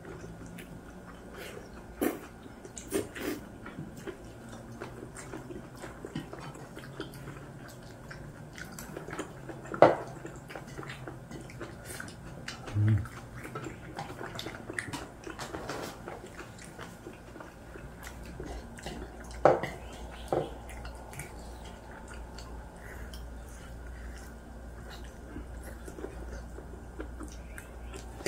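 People eating braised pork back ribs with rice: chewing and biting meat from the rib bones, with scattered small clicks and a few sharp knocks, the loudest about ten seconds in and again near twenty.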